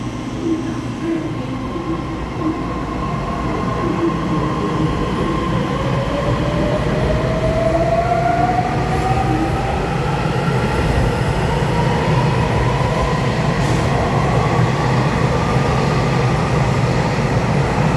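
Taiwan Railway EMU3000 electric multiple unit pulling out of an underground station. Its traction motors whine in a tone that climbs steadily as the train gathers speed, over a growing rumble of wheels on rail.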